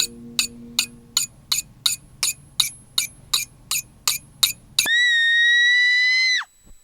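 Sharp, evenly spaced clicks, about three a second, with a few fading musical notes at the start. A loud, steady, high-pitched whistle-like tone then comes in and holds for about a second and a half before dropping in pitch and cutting off.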